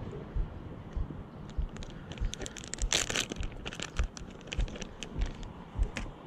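Plastic packet of soft-plastic fishing worms crinkling as it is handled and opened: scattered crackles, busiest about three seconds in, over soft low thumps about every half second.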